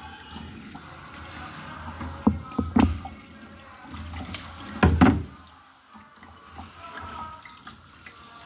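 Water splashing and sloshing in a kitchen sink while a tilapia is cleaned, with a few sharp snips and knocks from kitchen scissors cutting the fish; the loudest cluster comes about five seconds in, after which it goes quieter.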